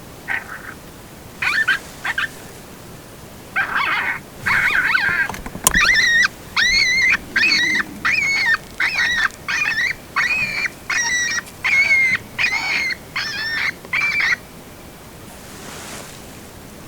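A predator call sounding coyote-like vocalizations: a few rougher calls, then a run of about a dozen short, high yelping notes, each rising and falling, about one and a half a second. This is a change of call meant to bring in a coyote that has hung up far out.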